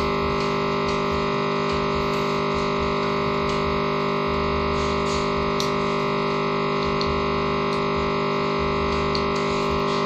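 A Mac laptop's speakers put out a loud, unchanging buzzing drone of several tones at once during a Windows blue-screen crash: the sound card is stuck repeating its last bit of audio, the usual sound of a frozen system.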